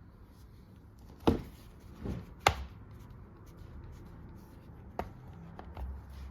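Handling noise: a few sharp knocks and taps of hard objects set down or bumped, two loud ones close together in the first half, then lighter clicks.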